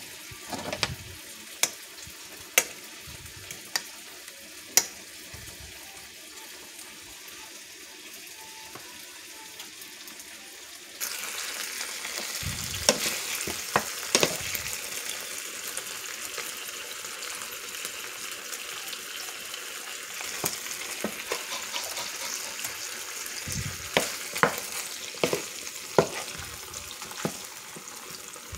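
Sweet pork longanisa sausages sizzling in a frying pan. The first part is quieter, with a few sharp clicks. About eleven seconds in the sizzle suddenly grows louder and runs steadily on, with scattered clicks and knocks of the pan and utensils.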